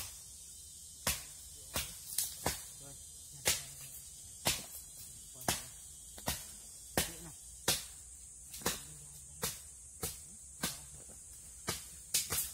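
Sharp knocks on timber, roughly one a second, as the split log and its planks are worked by hand. Under them runs a steady high-pitched insect drone.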